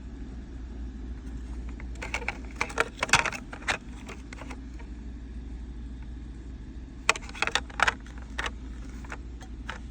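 Two bursts of clicks and rattles, about two seconds in and again about seven seconds in, over a steady low hum.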